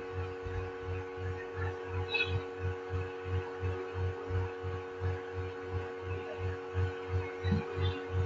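Steady machine hum with a low throbbing pulse repeating about three times a second.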